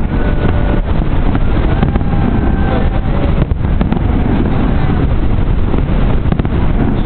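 Loud, steady low rumble and rush of outdoor noise, with wind buffeting the microphone; no distinct firework bangs stand out.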